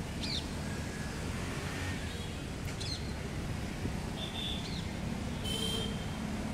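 A few short, high bird chirps, spaced irregularly, over a steady low background rumble.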